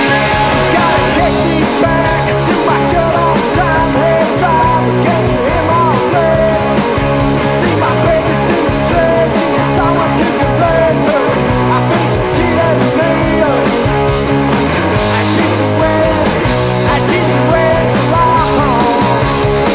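Punk rock band recording playing: electric guitars, bass and drums at a steady, driving beat.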